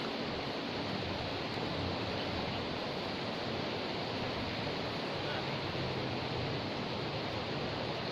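Floodwater river rushing past with a steady, even noise.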